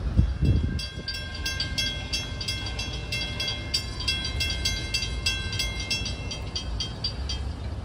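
A railroad bell ringing steadily at about three strikes a second over the low rumble of a train. The ringing starts about a second in and stops near the end.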